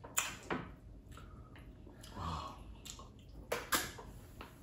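Close-up eating sounds of amala and slimy okra soup eaten by hand: a few short wet mouth smacks, with a soft squelch about halfway through.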